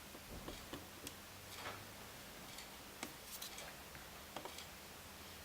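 Faint, irregular small clicks and taps from tiny phone parts and tools being handled and pressed into place while an iPhone 5 screen assembly is put together, over a faint steady low hum.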